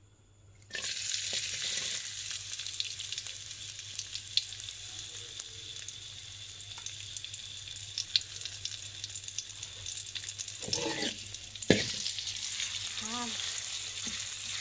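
Pounded chilli and garlic dropped into hot oil, starting a loud sizzle about a second in, then frying steadily while a metal spatula stirs and scrapes the pan, with small clicks and a sharper knock near the end. The aromatics are being fried until fragrant.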